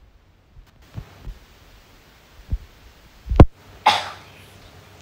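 A few dull low thumps, the loudest about three and a half seconds in, followed about half a second later by a short cough.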